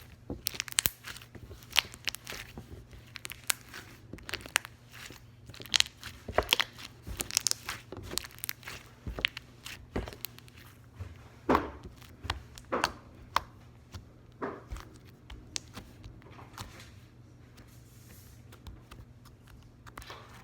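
Slime being squeezed and stretched by hand, giving off irregular sharp clicks and pops, thick at first and sparser in the second half.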